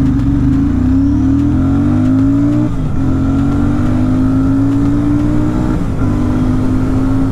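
Royal Enfield Super Meteor 650's parallel-twin engine at full throttle in a 0–100 km/h run: the engine note climbs in pitch, drops sharply at upshifts about three seconds and about six seconds in, then climbs again.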